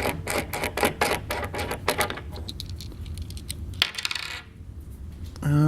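Small steel parts of a bicycle crank puller clinking and rattling against each other as they are handled and taken apart. There is a quick run of sharp clicks for about two seconds, then sparser clicks, and a short spoken word near the end.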